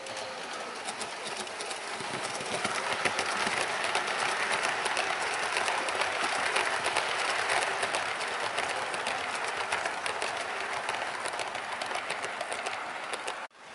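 OO gauge model train, a Bachmann Class 90 propelling a rake of Mark 3 coaches, running past on the layout: a steady rattle of wheels on track with many fine clicks over the rail joints. It grows louder about two seconds in as the train nears and eases off near the end as it moves away.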